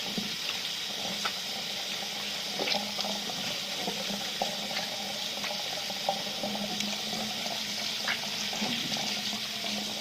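Tap water running steadily into a sink, with a few light clicks of things being handled under it.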